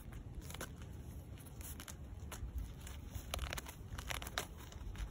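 Short-beaked echidna digging in gravelly soil, its claws and snout scraping and crunching loose stones and earth in irregular bursts while it searches for ants.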